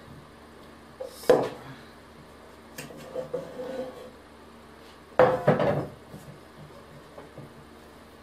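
Stainless steel mixing bowl knocked against the worktop to turn out a chilled block of margarine and flour. There is a sharp knock about a second in, softer clatter a couple of seconds later, and a louder cluster of knocks with a brief metallic ring about five seconds in.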